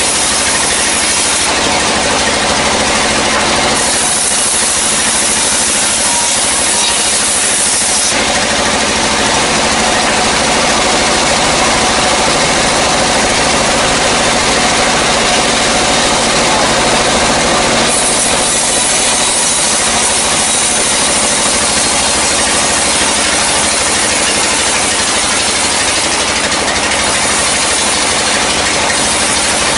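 Sawmill band saw running and its blade cutting lengthwise through a dry, long-felled log. It makes a loud, continuous grinding hiss that grows brighter and harsher for stretches as the blade bites into the wood.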